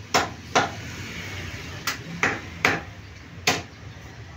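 A meat cleaver chopping raw chicken on a wooden chopping block: six sharp chops at an uneven pace.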